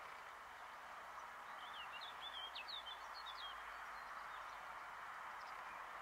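A small songbird sings one short phrase of quick, sliding chirps about one and a half seconds in, over a steady outdoor hiss.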